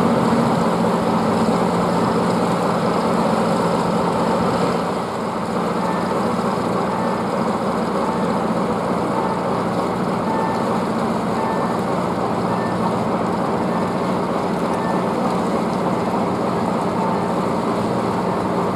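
Steady mechanical drone of heavy machinery with a low hum. From about five seconds in, a short electronic warning beep repeats about once a second.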